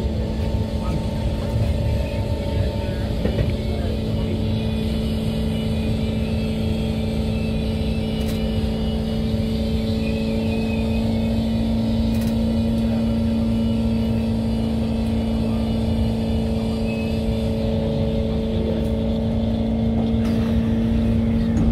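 SMRT Kawasaki C151 MRT train running at steady speed: a continuous low rumble of wheels on rail under a constant, even hum.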